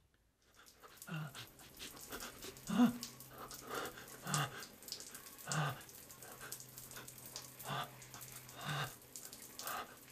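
A person breathing heavily in short, repeated voiced breaths, about one every second and a half, over a low steady hum.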